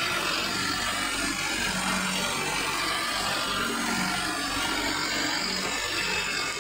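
Sonalika tractor's diesel engine running steadily under load while its rear rotary tiller churns wet mud.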